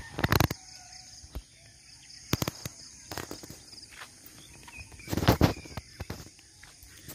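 Rural outdoor ambience with a steady high insect drone and faint bird calls. It is broken by several loud rustling knocks of a handheld phone being moved while walking, the loudest about five seconds in.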